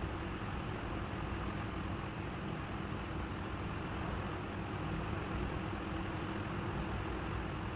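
Steady low hum with a hiss over it, unchanging throughout, like a motor or fan running; no distinct handling sounds stand out.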